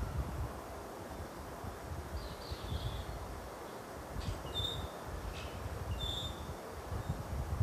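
A low, uneven rumble of wind on the microphone, with a few short, high bird chirps: a cluster about two to three seconds in, then single chirps at about four and a half and six seconds.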